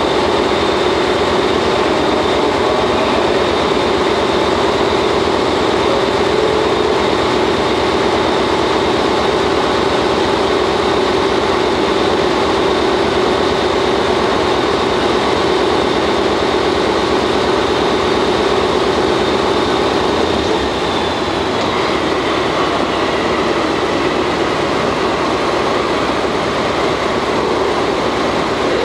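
DE10 diesel locomotive idling close by, a loud steady engine rumble and hum. The hum drops slightly and changes about two-thirds of the way through.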